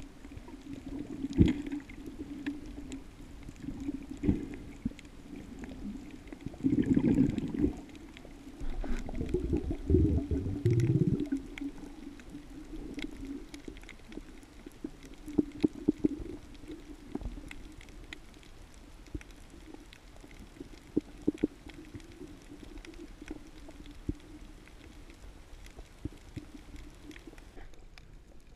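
Muffled underwater sound picked up through a camera's waterproof housing: a steady low hum with scattered small clicks, and two louder stretches of gurgling water about a quarter and a third of the way in.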